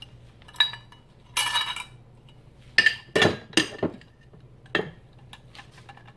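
Metal kitchenware clinking: a metal measuring cup and utensils knock against a stainless steel mixing bowl. There are about six sharp clinks, one of which rings briefly about a second and a half in.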